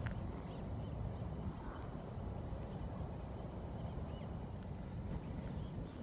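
Footsteps on a sandy, gravelly path, over a steady low rumble on the microphone, with a few faint high chirps.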